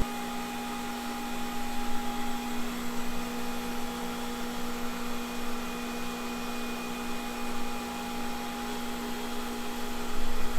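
Steady machine hum and whir, most likely a wheel balancer spinning a freshly mounted tire and wheel.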